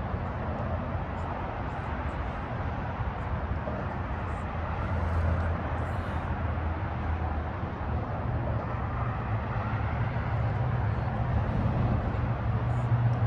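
Steady low rumble of road traffic on the suspension bridge overhead, growing slightly louder toward the end.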